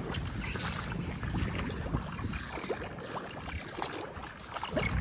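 Legs wading through the shallow water and mud of a flooded rice paddy, water sloshing and splashing with each step.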